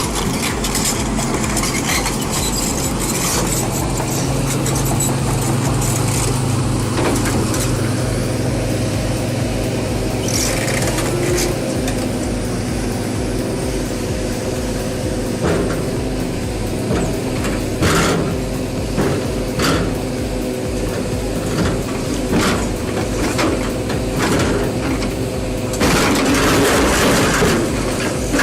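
Heavy machine's engine running steadily, with scattered sharp knocks and clanks in the second half and a louder, rougher stretch near the end.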